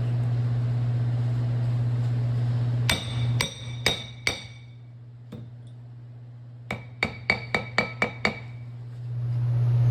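A steady low hum, then a hammer striking metal with a ringing note: four blows about three seconds in, a single one a little later, and a quick run of six at about four a second near the end.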